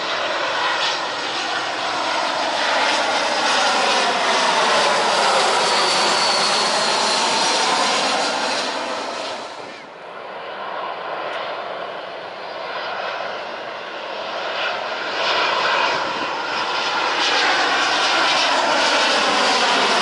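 Jet airliners passing low overhead on landing approach. A narrowbody twinjet's engines sound loudly, with a sweeping, shifting tone and a faint falling whine, and fade about ten seconds in. Then the engines of a Qatar Airways Boeing 787-8 Dreamliner build up as it approaches, loud again by the end.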